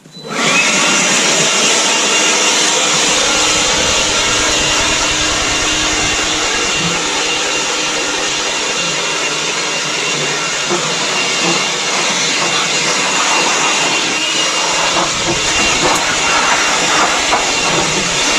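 DeWalt 20-volt cordless battery blower switched on and running steadily, blowing sawdust off a sawn beam: a loud, steady rush of air with a thin motor whine that rises as it spins up at the start.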